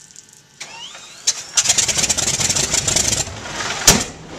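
Large radial aircraft engine cold-starting. About a second in it starts firing in a fast, ragged stutter of sharp pops that runs for a couple of seconds. It eases off, then a single loud bang comes just before the end.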